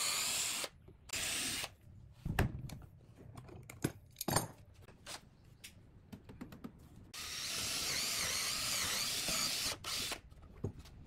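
Electric drill boring into wood, with short runs near the start and a longer run of a few seconds in the second half. The drill's pitch wavers as it bites into the wood. In between come scattered knocks and clatter of the wood being handled on the bench.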